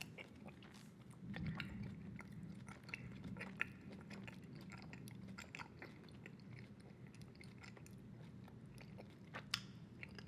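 Close-miked wet chewing of bubble gum: soft irregular smacks and clicks of the mouth, with a sharper click about nine and a half seconds in.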